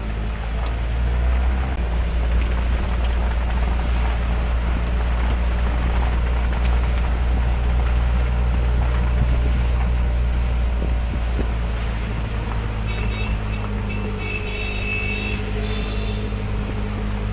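Auto-rickshaw engine running steadily under heavy rain, heard from inside the open cabin, with rain hissing on the canopy and windshield.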